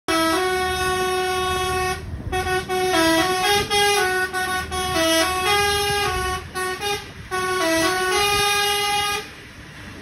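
Basuri telolet air horn on a coach playing a tune: one long held chord for about two seconds, then a run of short notes stepping up and down. It stops about nine seconds in, leaving a low engine and road rumble.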